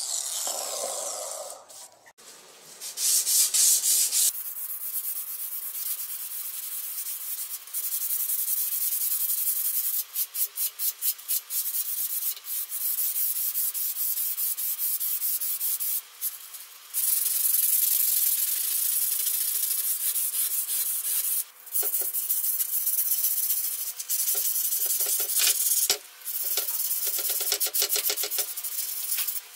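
Sandpaper rubbed by hand back and forth over a steel axe blade, a steady scratchy hiss with quick runs of short strokes.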